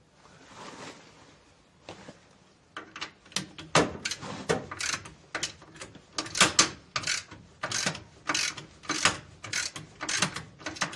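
Hand ratchet wrench clicking in short back-and-forth strokes as a 14 mm bolt on a lower control arm is tightened. The clicks come about twice a second from about three seconds in, after a soft rustle.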